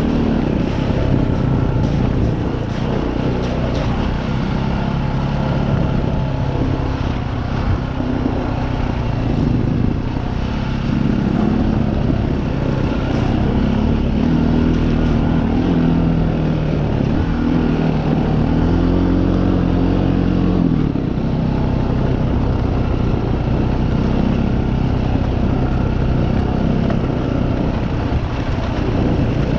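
Trail motorcycle engine running as the bike is ridden along a rough, muddy lane. Its pitch rises and falls with the throttle and drops sharply about two-thirds of the way through, over a steady rush of wind noise.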